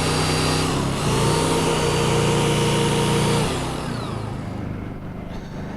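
Portable Honda generator running under load while the electric motor of a corded Hurst hydraulic rescue tool runs with it. About three and a half seconds in the tool is let off: its motor winds down with a falling whine and the overall sound drops, leaving the generator running more quietly.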